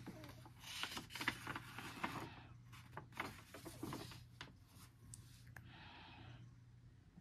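A coloring book's paper page being turned by hand: rustling and scraping for about four seconds, with a few sharp crinkles.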